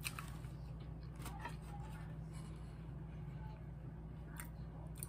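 Faint, scattered clicks of eating: a spoon dipping into a paper side cup and small mouth sounds, over a steady low hum.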